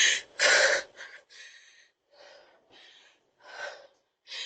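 A woman gasping and panting hard in distress: one loud ragged breath just after the start, then a run of fainter quick breaths about every half second.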